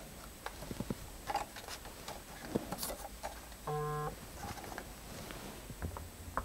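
Light clicks and taps of a plastic drone being turned over in the hands during compass calibration, with one short electronic beep a little past the middle.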